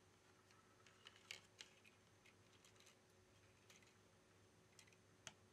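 Faint, scattered light clicks and taps of a smartphone's plastic back cover being handled and pressed onto its frame. The sharpest clicks come about a second and a half in and again near the end.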